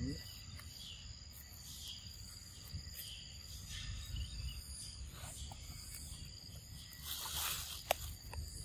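Insects calling in steady high tones. Over them come soft crunching and rustling as a macaque bites and gnaws the skin of a green mango, with a louder burst about seven seconds in.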